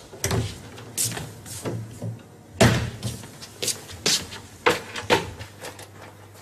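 A series of about ten sharp knocks and bangs at irregular intervals, like doors or objects being slammed or handled; the loudest comes about two and a half seconds in.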